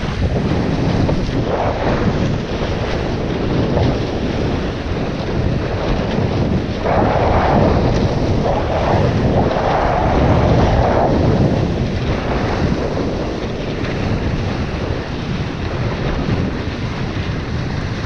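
Strong wind buffeting an action camera's microphone over the rush and hiss of water streaming past a windsurf board planing at speed. The water noise swells for a few seconds in the middle.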